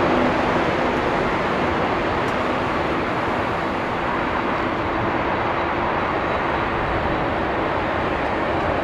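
Jet noise of a Boeing 767-400ER airliner with General Electric CF6 turbofans as it touches down and rolls out on the runway: a steady loud rush with a faint humming tone under it, easing slightly after the first second.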